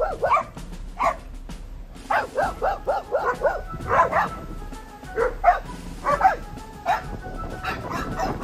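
Several dogs barking and yipping in quick runs of short calls as they play, with music underneath.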